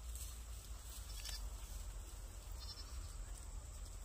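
A faint animal call about two and a half seconds in, over a steady low rumble.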